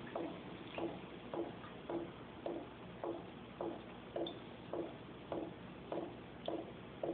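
Blow-off tube from an actively fermenting 6.5-gallon carboy, bubbling gas out into a glass of water in a steady bloop a little under twice a second, a sign of vigorous fermentation.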